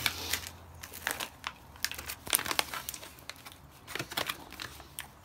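A tan plastic MRE ration pouch crinkling and crackling as it is handled, in irregular clusters of sharp crackles.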